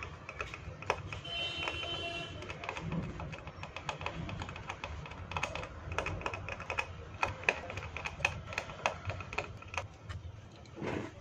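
Small hand tool clicking and scraping against a set-top box circuit board at its cable socket, in quick irregular clicks, as a solder point is cleaned up for soldering.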